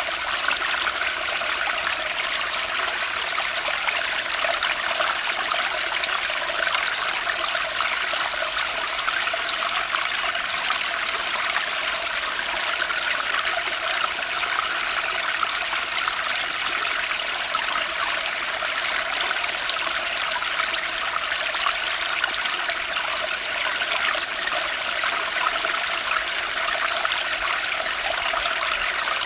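Running water flowing steadily without a break.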